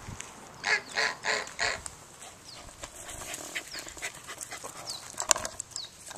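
A goose honking four times in quick succession about a second in, followed by faint small-bird chirps and a sharp knock near the end.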